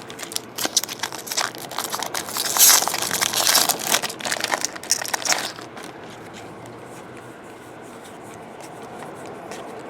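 Foil wrapper of a Bowman Draft card pack crinkling and tearing as it is opened, with a dense run of crackles for about five seconds, then much quieter.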